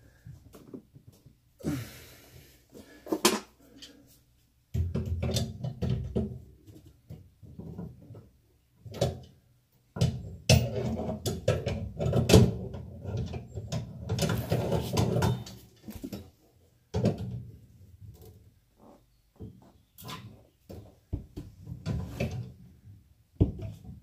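Irregular knocks, clicks and clatter of hands working with tools and plumbing fittings, with two longer stretches of rummaging and handling noise, about five seconds in and again from about ten to fifteen seconds in.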